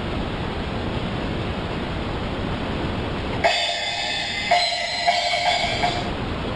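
A steady rushing noise. About three and a half seconds in it gives way to a thin, filtered-sounding sample with a few sharp hits, played from beat-making software on the keyboard controller. After about two and a half seconds the rushing noise returns.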